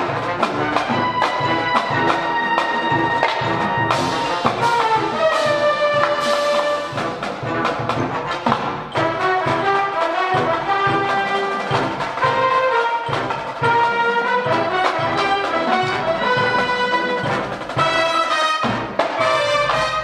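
High school marching band playing: trumpets, trombones and sousaphones carry the melody over marching snare and bass drums beating time.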